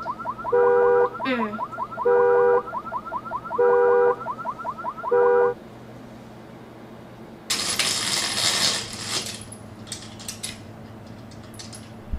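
Car alarm going off: a fast warbling siren with the horn honking four times, about every second and a half, until it stops about five and a half seconds in. A rustling noise follows a couple of seconds later.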